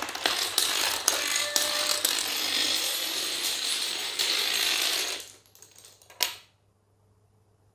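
A long chain of toy dominoes toppling one after another in a rapid, continuous clatter of small clicks. The clatter dies away about five seconds in, and one last sharp click follows about a second later.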